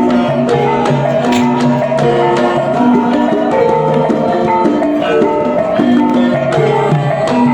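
Ebeg accompaniment music: a Javanese pitched-percussion ensemble playing a stepping, repeating melody of ringing notes over steady hand-drum strokes.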